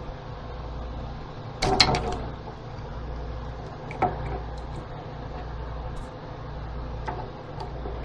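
Plastic parts of a Petmate fountain's pump clicking and clattering as they are pried apart and handled. The loudest clatter comes about two seconds in, then a sharp click about four seconds in and a few small ticks later, over a steady low hum.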